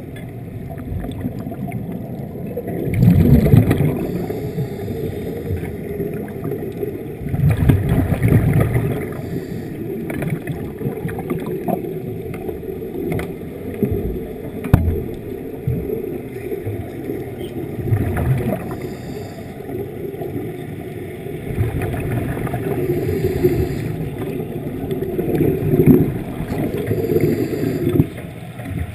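A diver's exhaled air bubbles rushing out in bursts about every four to five seconds, over a steady underwater rumble.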